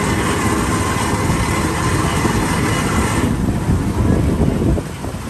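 Street traffic noise: a motor vehicle running close by as a steady, dense noise that drops off a little near the end.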